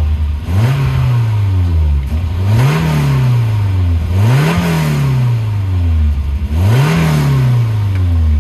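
Volvo 240 redblock four-cylinder engine being revved in four quick throttle blips, each rising sharply and sinking slowly back to idle. The engine has just started running again after corroded ignition wires that had cut its spark were wiggled back into contact.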